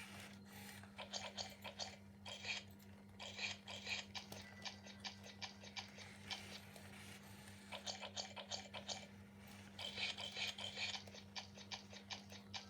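Sony Aibo ERS-1000 robot dog eating from its food bowl: several groups of quick, faint clicking and gnashing, each about a second long, over a steady low hum.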